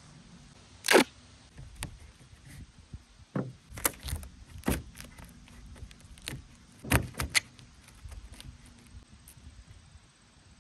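Handling noise on a table top: a series of knocks, clicks and small metallic clatters as a melon is propped on small metal supports. The loudest is one sharp knock about a second in.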